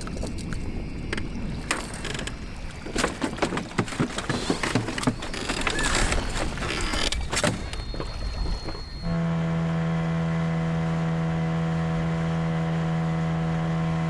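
Wind and water noise with scattered knocks and clatter on a boat. About nine seconds in, it switches suddenly to a boat's outboard motor running at a steady speed, an even hum.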